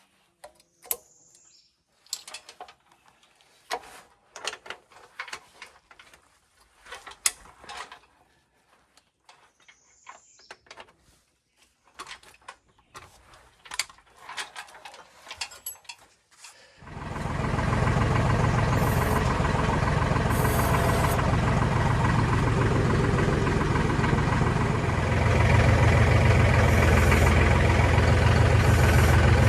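Scattered light clicks and knocks, then about seventeen seconds in a heavy engine comes in and runs steadily, a little louder for the last few seconds.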